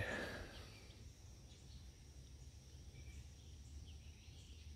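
Quiet garden ambience with a few faint, brief bird chirps scattered through it.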